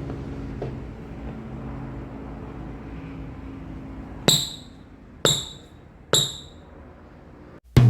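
A basketball bouncing three times on a hard floor, about a second apart, each bounce a sharp hit with a short ringing tail, over a steady low room hum.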